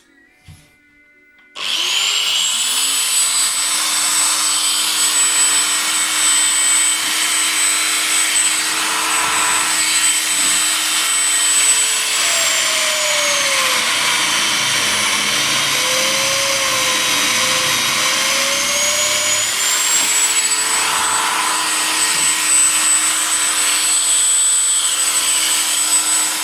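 Electric motor of a homemade drill press switching on about two seconds in and running with a steady high whine. Midway the pitch sags and wavers for several seconds, then rises back to full speed.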